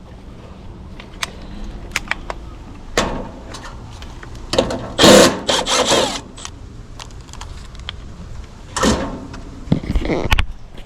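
Hand tools and metal parts being handled at an air conditioner condenser's capacitor: scattered clicks and knocks, with a louder scraping rasp about halfway through and a shorter one near the end.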